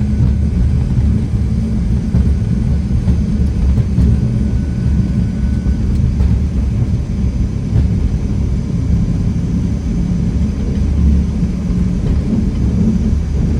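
Fokker 100 jet airliner accelerating down the runway at takeoff thrust, heard from inside the cockpit: a loud, steady, low rumble of the takeoff roll between eighty knots and rotation.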